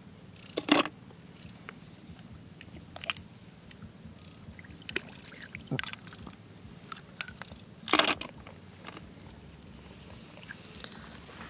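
River snail shells clacking and scraping together as they are handled, in a few sharp knocks. The two loudest come about a second in and about eight seconds in, with lighter clicks between them.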